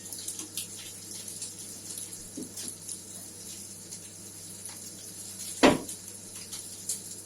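Kitchen handling sounds: scattered small clicks and taps of dishes and utensils, with one sharp knock about five and a half seconds in.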